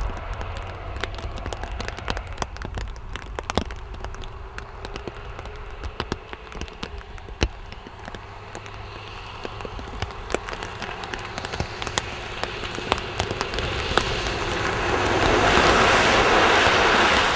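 Rain with many sharp drop ticks close by, over a low steady rumble. About two thirds of the way in, a lorry passes close on the wet road, its tyres hissing through the water in a rising and falling rush that is the loudest sound.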